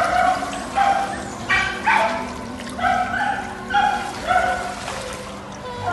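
A dog barking repeatedly, about ten short, high barks in quick succession that stop a little after four seconds in.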